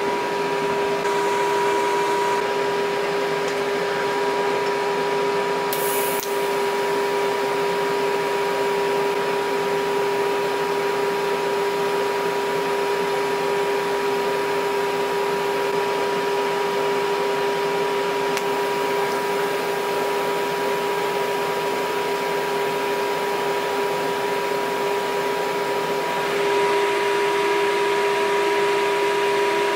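TIG welding arc burning on stainless steel with pulse switched on: a steady buzzing hum over a hiss, getting a little louder near the end.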